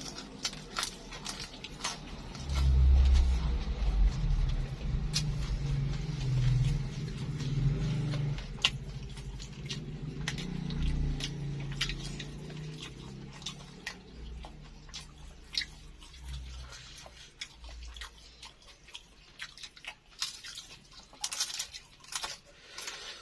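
Close-miked chewing of crispy egg martabak: many short crunches and mouth clicks over a low rumble that is heaviest in the first half and fades toward the end.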